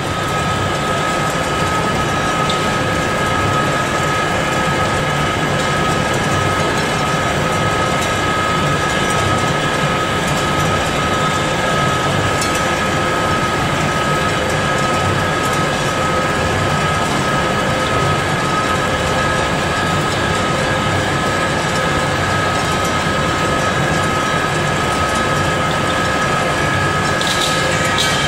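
Yulong vertical ring-die pellet mill running under load, pressing mushroom dreg into pellets: a steady loud machine drone with a constant whine over it.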